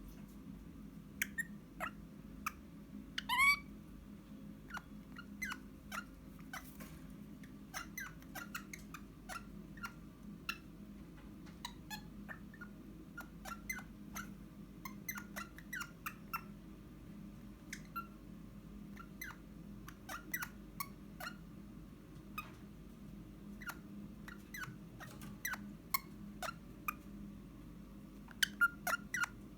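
Eastern rosella making soft calls: scattered short chirps and clicks throughout, with one rising, warbling whistle about three seconds in and a few louder clicks near the end. A faint steady hum lies underneath.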